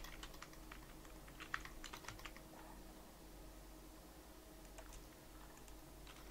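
A quick run of faint computer keyboard keystrokes about one and a half seconds in, with a few scattered clicks later, over a low steady hum.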